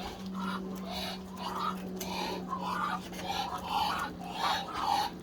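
Pet poultry making soft, short, repeated calls, about two a second, over a steady low hum.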